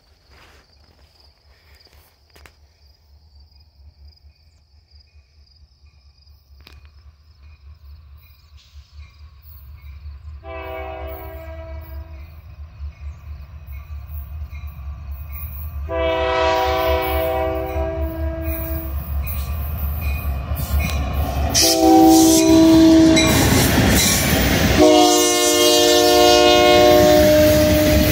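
Union Pacific diesel locomotive approaching and passing while sounding its multi-chime air horn in the grade-crossing signal: two long blasts, a short one, then a long one, each louder than the last. Under the horn the engine rumble builds steadily, and near the end the freight cars roll past.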